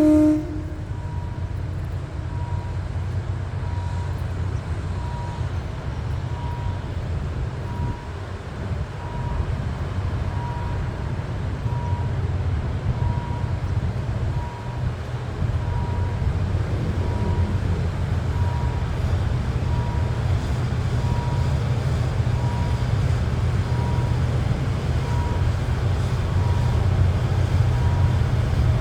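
Steady low rumble of a running vehicle that grows a little louder toward the end, with a faint high beep repeating a little more than once a second.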